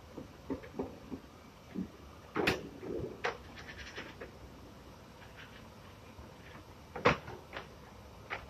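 Scattered knocks and clatters of rubber extrusion strips and cutting jigs being handled on workbench tables, with a few sharper knocks, the loudest about seven seconds in.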